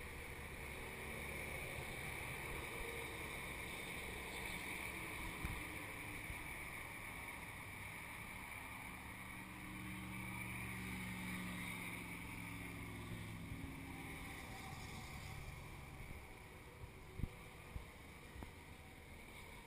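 Wind on the microphone over a steady low traffic rumble, with a vehicle's engine drone swelling and fading about halfway through and a few light knocks near the end.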